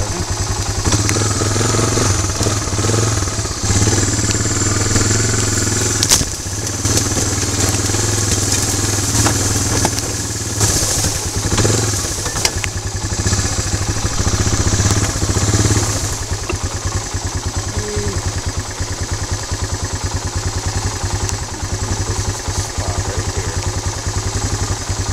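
ATV engine running, worked harder and more unevenly as the quad pushes through brush, then settling to a steadier, slightly quieter run about two thirds of the way through. Clatter and swishing of vegetation against the machine are mixed in.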